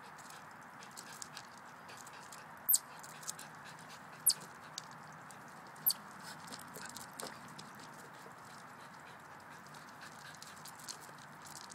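Three sharp, high-pitched chirps about a second and a half apart, the alarm chips of a chipmunk, over a steady background hiss with faint light ticks.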